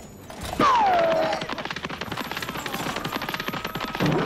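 Cartoon chase sound effects: a fast, continuous rattling clatter, with a loud whistle about half a second in that slides down in pitch and then holds for about a second. A short thump comes near the end.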